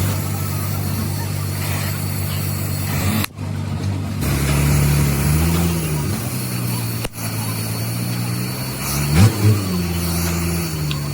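A motor vehicle engine running steadily, with a brief rise in pitch twice, as if revved.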